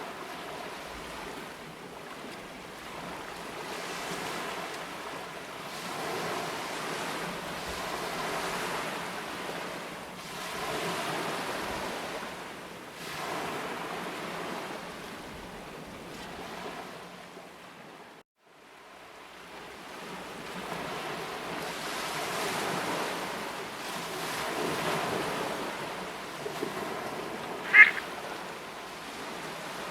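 Sea waves washing on the shore, swelling and fading every few seconds, with a brief dropout about two-thirds of the way through. Near the end a single short, sharp, high call rings out above the surf: a Eurasian oystercatcher.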